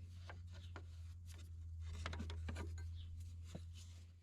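Small clicks, scrapes and rubbing of hands working a stuck air-clutch fitting on a corn planter row unit, over a steady low hum.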